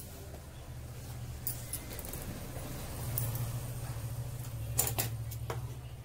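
Hands smoothing and folding cloth on a tabletop, with a few sharp clicks, the loudest about five seconds in, over a steady low hum.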